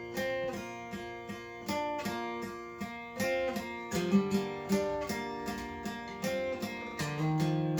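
Acoustic guitar playing the closing instrumental bars of a song: plucked notes about three a second, then a chord struck near the end that is left ringing.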